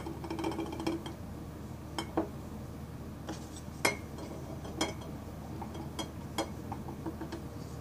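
Measuring cup clinking against the rim of a glass jar as plaster of Paris powder is poured and knocked out. There is a quick run of small clinks in the first second, then single sharp clinks about once a second.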